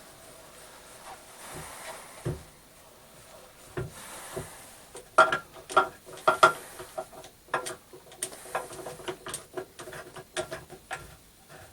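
Metal tools and fittings clinking and knocking against each other at the lathe: sharp, briefly ringing taps, a few at first, then a busy run of them from about five seconds in.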